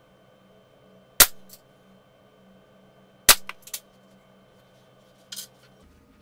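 A Walther CP88 Competition .177 CO2 pellet pistol firing two sharp shots about two seconds apart, each followed by fainter clicks, with a softer click near the end. On this magazine the shooter hears the gun as a tiny bit weaker.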